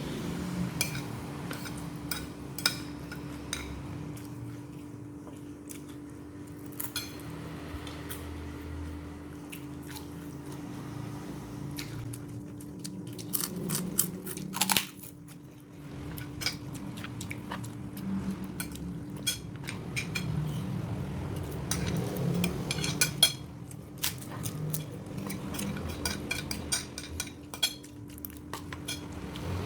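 Irregular clinking and knocking of kitchen utensils and dishes, with sharp clicks coming more often in the second half, over a steady low hum.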